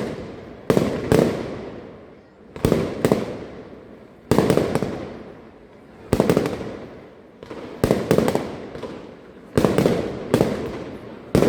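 Fireworks display with sharp bangs of bursting fireworks in clusters of one to three, about every one and a half to two seconds, each cluster followed by a fading echo.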